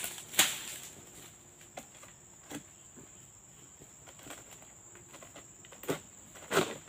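A handful of sharp knocks and scrapes as a long-poled harvesting sickle works against the crown of an oil palm, over a steady high insect whine.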